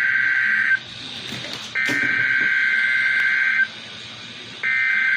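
NOAA Weather Radio SAME (Specific Area Message Encoding) header tones: identical, screechy digital data bursts about two seconds long, with a gap of about a second between them. One burst ends under a second in, a second fills the middle, and a third starts near the end. They are the coded alert header sent in the weekly test of the tone alert system.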